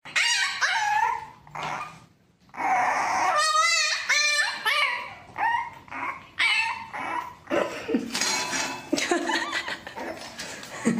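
A French bulldog puppy calling out in a string of short yips and whines, with one wavering, warbling call about three and a half seconds in.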